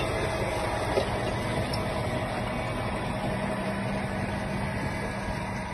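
A John Deere 6250R tractor's 6.8-litre six-cylinder diesel engine running steadily under load as it pulls a six-furrow reversible Kverneland plough.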